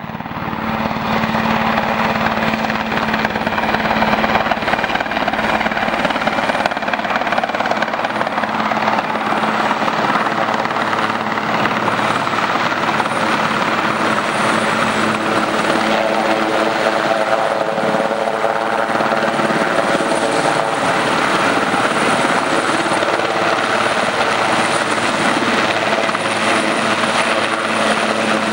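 RAF Puma twin-turbine transport helicopter flying in low and close: a steady, loud rotor and turbine noise with a thin high turbine whine. About halfway through, a set of humming tones joins in as it nears.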